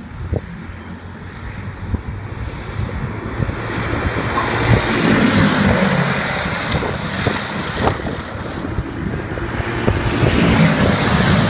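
A pack of racing karts with Briggs & Stratton World Formula four-stroke engines running past at speed. The engine noise swells to its loudest about five seconds in as the karts pass close by, eases, then rises again near the end.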